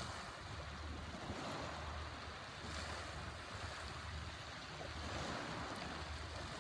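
Sea waves washing steadily, with wind rumbling in uneven gusts on the microphone.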